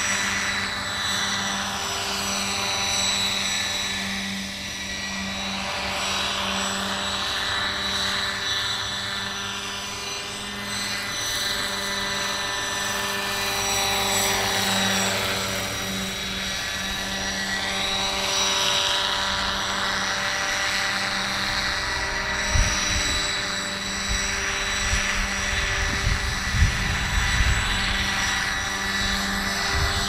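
Large scale RC Hughes MD 500D model helicopter flying low passes, with a steady rotor beat and a high whine that swell and shift in pitch as it sweeps past, about four seconds in and again around fifteen seconds. A few low thumps come near the end.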